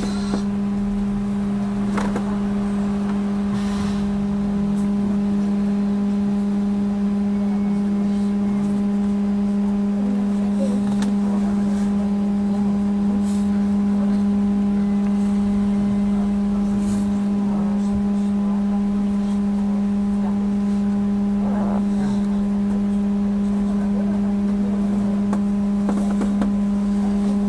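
Trolleybus's on-board electrical equipment giving a steady hum with several overtones, with a few faint clicks and knocks over it.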